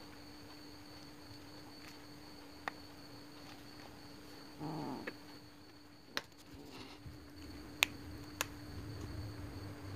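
Kitten giving one short call about halfway through, over a steady high-pitched background drone, with a few sharp clicks in the second half.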